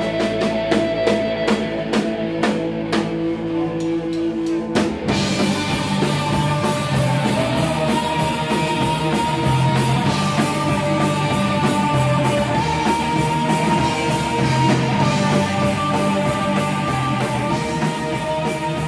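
Live rock band with drum kit and electric guitar playing. For about the first five seconds held low notes ring under sharp, regular drum hits, then the full band comes in dense and loud.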